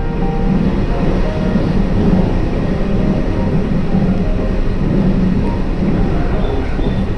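Train running: a steady rumble with a low hum.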